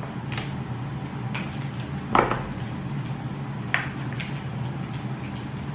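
A few light clicks and knocks of small objects being handled on a table, the loudest a knock with a dull thump about two seconds in, over a steady low hum.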